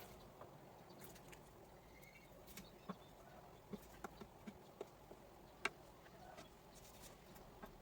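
Near silence with scattered faint clicks and taps of small parts or tools being handled, the sharpest tick a little past halfway.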